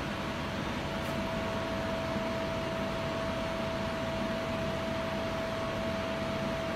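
Samsung SMEC PL60L CNC lathe spindle running at a steady speed with its chuck spinning free and nothing being cut: an even mechanical hiss with a steady whine held at one pitch.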